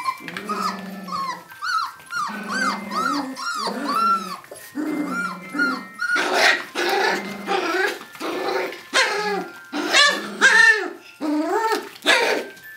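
Smooth collie puppies, about a month old, growling and yipping as they play: a rapid run of short squeaky yips over low growls, louder and sharper from about halfway through.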